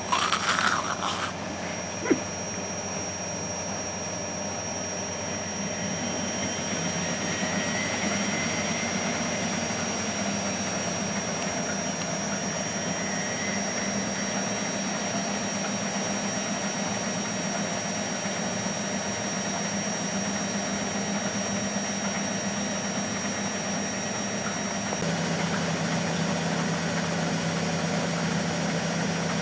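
Miele Hydromatic W734 washing machine running: a steady motor hum with a thin high whine, after a couple of brief clatters near the start. About 25 seconds in the hum drops slightly in pitch and the whine stops, as the machine changes speed.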